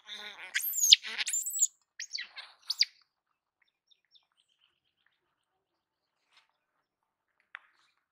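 A baby macaque screeches in a run of high, sweeping squeals over the first second and a half, then gives a few shorter falling calls about two to three seconds in.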